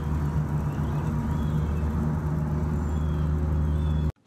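A steady low hum of a motor running, with faint short high chirps every second or so; it cuts off suddenly near the end.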